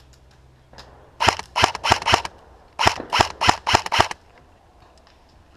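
Airsoft rifle fire: two rapid strings of sharp shots, about three a second. The first string runs about a second in and the second about three seconds in, the second a little longer.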